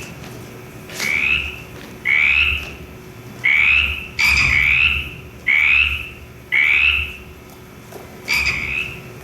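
Frog croaks, about seven short calls in a row, roughly one a second.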